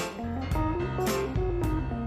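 Background music: upbeat guitar-led track with a steady beat and bass.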